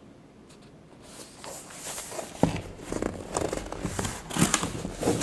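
A cardboard box being handled and opened by hand: rubbing and scraping of cardboard starting about a second in, with several sharp knocks of the flaps and lid.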